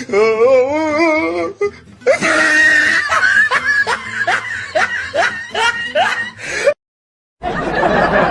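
Sound-effect clips played back to back. First comes a wavering, warbling tone, then music with laughter and short rising notes about twice a second. It cuts off abruptly to silence for under a second, and a dense rushing noise begins near the end.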